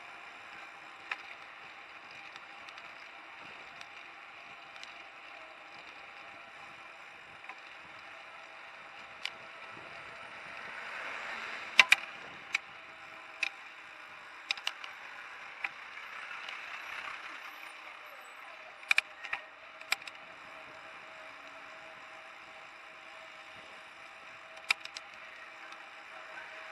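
Street traffic heard from a moving bicycle: a steady hiss that swells twice, broken by sharp clicks and knocks, the loudest a quick pair a little before halfway and more near the end.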